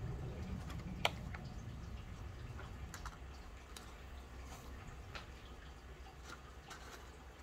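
Scattered light clicks and taps as a small plastic cup scoops aquarium substrate and works around a glass fish bowl, with one sharper click about a second in, over a low rumble.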